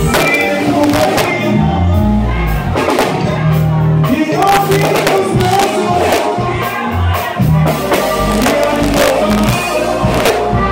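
Live norteño band playing loud: accordion and saxophone over a stepping bass line and drums, with a man singing into a microphone.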